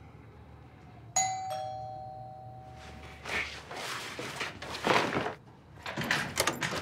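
A two-note ding-dong doorbell chime about a second in, high note then low, ringing out for about two seconds. It is followed by footsteps and the clicking of the door lock being opened near the end.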